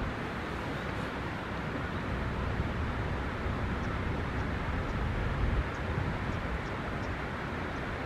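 Steady outdoor background noise, a rushing hiss over an uneven low rumble, with no bird call standing out.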